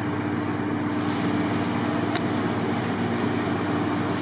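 Steady motor drone, with a single light click about two seconds in.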